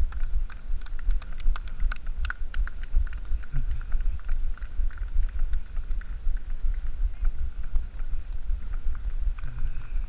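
Wind and jolting rumbling on the microphone of a camera carried by a running runner, with quick clicks and knocks in time with the strides.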